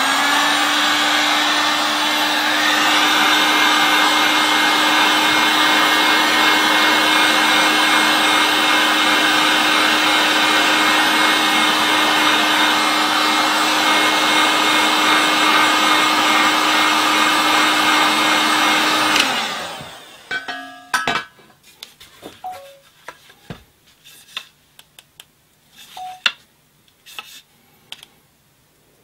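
Electric heat gun running steadily with a fan hum as it heats a bent section of green bamboo to soften it for straightening. It is switched off about 19 seconds in and winds down. Scattered light clicks and knocks follow as the bamboo stalks are handled.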